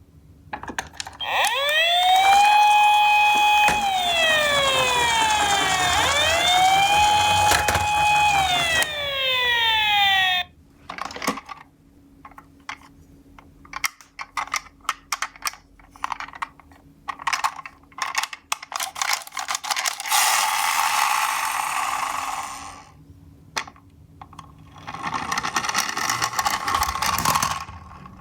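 Toy ambulance's electronic siren wailing for about the first ten seconds, several rising-and-falling wails overlapping, then cutting off. Sharp plastic clicks and taps follow, then two stretches of rattling rolling noise as the toy cars run down the slope.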